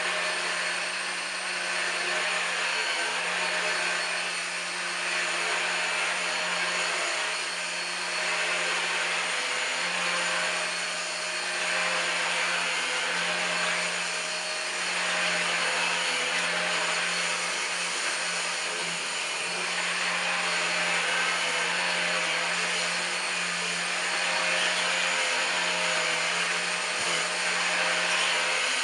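Numatic Henry Quick HEN70 cordless stick vacuum running steadily: a constant motor hum and whine over a rush of suction air, swelling and easing slightly every few seconds.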